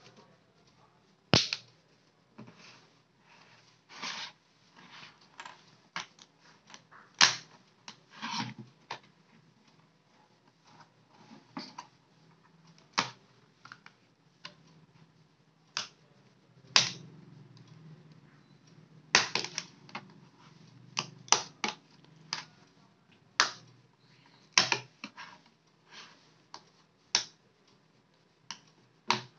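Irregular sharp clicks and snaps as a plastic opening pick is worked along the seam of an Amazon Kindle's case, prying the bezel's plastic clips apart.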